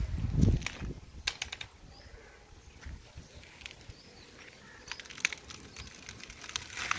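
Coconut husk being pried and torn away by hand on a manual coconut dehusker: dry husk fibres crackle and rip in short clusters, about a second in, around five seconds in and again near the end. A low thump comes right at the start.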